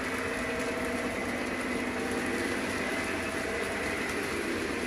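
Lionel O-gauge model train running steadily on three-rail track, locomotives and passenger cars rolling by with an even mechanical hum.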